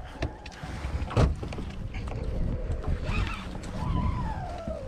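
A dog whining close to the microphone, a thin wavering whine that rises and falls in pitch in the second half, over wind and water rumble on the boat, with a single knock about a second in.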